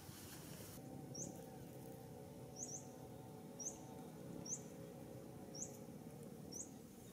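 A small bird repeating short, high chirps about once a second, one of them doubled, over a faint steady low hum.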